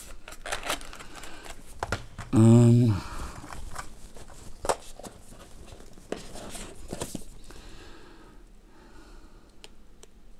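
Rustling and light clicks of a small cardboard earbud box and its insert being handled and turned over, dying down after about seven and a half seconds. About two and a half seconds in, a short hum of a man's voice is the loudest sound.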